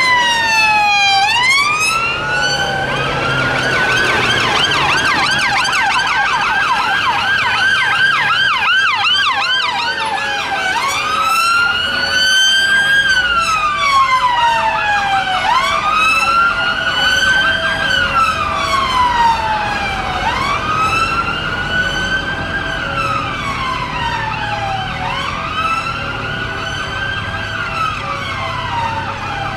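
Police van sirens: a slow wail rising and falling about every four to five seconds. From about two seconds in until about ten seconds in, a second siren's fast yelp warbles over it.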